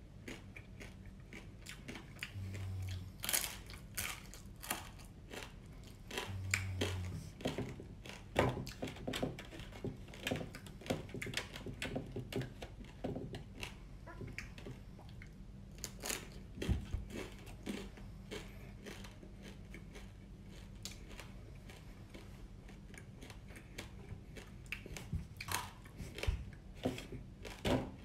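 Chewing and crunching on flour-battered, deep-fried baby swimming crabs, with irregular crisp crunches.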